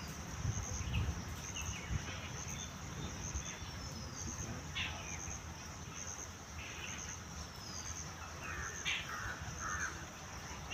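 Outdoor ambience: insects chirping in a high, evenly pulsing trill, with a few short bird calls over a low background rumble.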